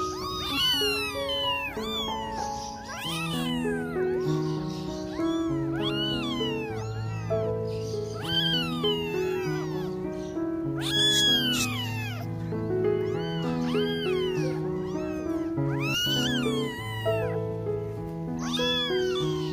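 Newborn kittens mewing over and over in high, thin cries that rise and fall, about one a second: the distress calls of kittens left without their mother. A slow tune of held notes plays underneath.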